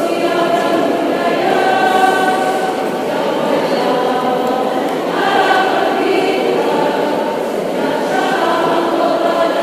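Women's choir singing together in several voice parts, in held notes and phrases.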